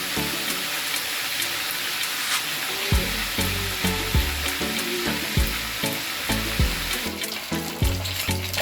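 Background music with a steady beat over a continuous hiss.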